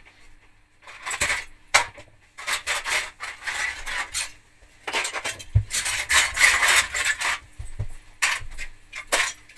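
Loose plastic Lego bricks clattering and rattling in short, irregular bursts as they are kicked and scattered across the floor, with a couple of low thuds.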